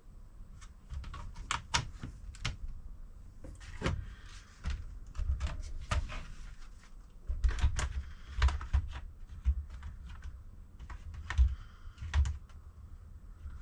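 Irregular clicks, taps and light knocks from a laptop and its charger being handled on a workbench, with low thuds between the clicks.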